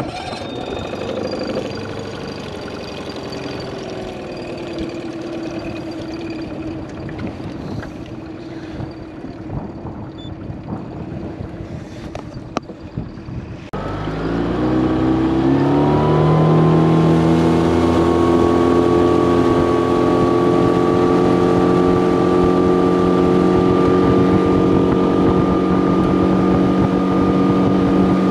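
Outboard motor of a small fishing boat running at low speed, its pitch sagging slightly. About halfway through the throttle opens: the engine climbs in pitch over a couple of seconds, then holds a steady, louder run at speed.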